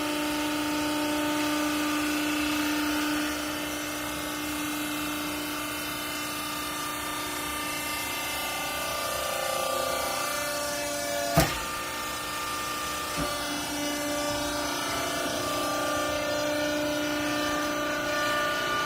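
Hydraulic vertical baler's motor and pump running with a steady whine whose pitch shifts a few times; one sharp clack about eleven seconds in.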